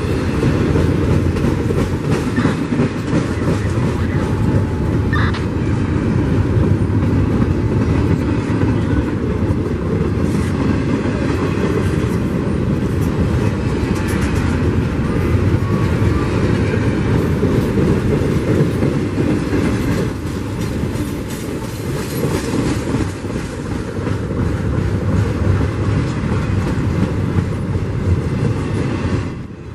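Double-stack intermodal freight train rolling past close by: a steady, loud rumble and rattle of the well cars, with wheels clacking over the rails. It eases a little in the last third.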